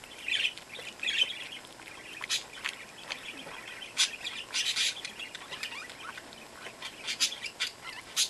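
Newborn Chihuahua puppies squeaking in short, high, bird-like bursts, mixed with wet clicks and smacks as the mother dog licks at a puppy and its umbilical cord.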